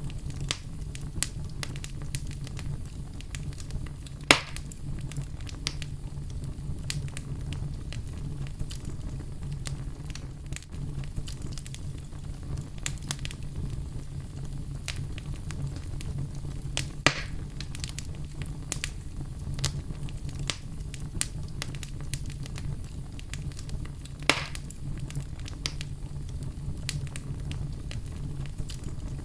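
Wood fire burning in a fireplace: a steady low rumble of flames under many small crackles, with three louder pops spread through it.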